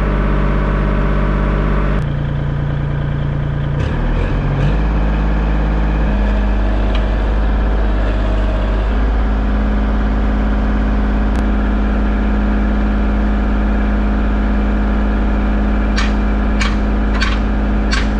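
An engine running steadily, its tone shifting a few times in the first few seconds and then holding even, with several sharp clicks near the end.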